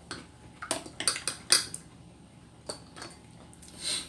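A series of light, sharp clicks and clinks of small hard objects being handled, about half a dozen spread over the first three seconds, then a brief breathy sound near the end.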